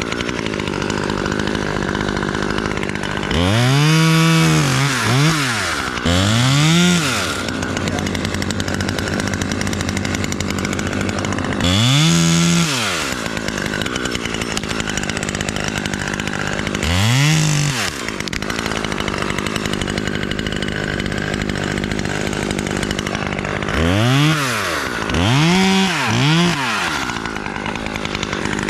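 Gas top-handle chainsaw idling, then revved up in about eight short bursts, each rising in pitch and falling back to idle, as it cuts branches off a fir trunk. The revs come singly through the middle and three in quick succession near the end.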